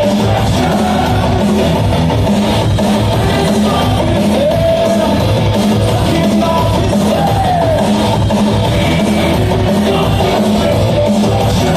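Loud live dance music with a heavy, steady beat, played over a concert venue's sound system.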